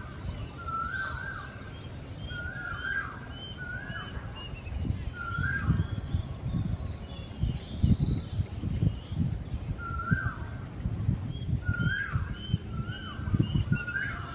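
Birds calling repeatedly: a short call repeats about once a second, with thinner, higher chirps in between. Underneath runs a low, uneven rumbling noise that grows stronger around the middle.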